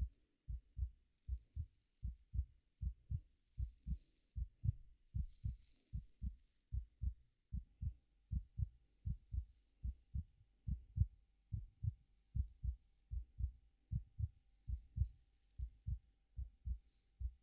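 Heartbeat: a steady, even run of low double thumps (lub-dub). Over it, soft rustling from hair being played with comes and goes in short patches.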